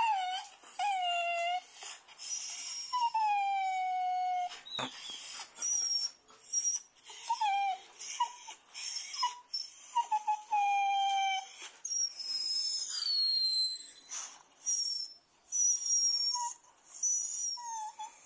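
Recorded dog crying sound played back: a run of high whines and yelps, most falling in pitch, some short and some drawn out for about a second, with thin high squeals mixed in.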